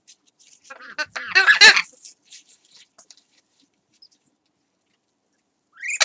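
Parrot calling: a loud, harsh squawk about a second in that lasts about a second, and a short rising call near the end.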